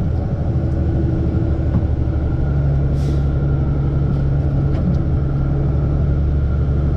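Diesel engine of an M1078 LMTV military truck running steadily on the move, its low hum growing stronger about two and a half seconds in. A short hiss comes about three seconds in.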